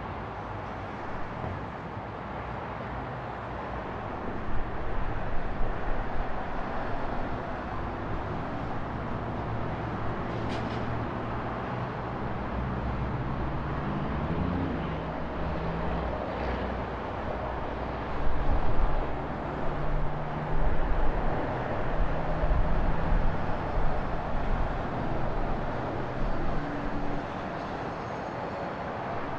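Road traffic noise: a steady wash of passing vehicles with engine hum rising and falling, with a couple of louder rumbling swells partway through.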